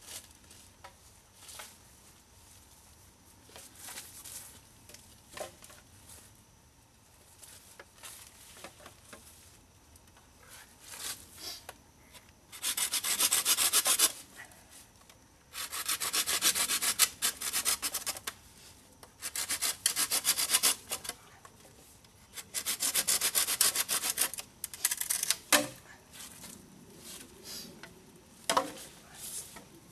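Folding pruning saw cutting through a green bamboo pole: several bursts of rapid rasping strokes, starting about twelve seconds in, after faint rustles and clicks. A few sharp knocks come near the end.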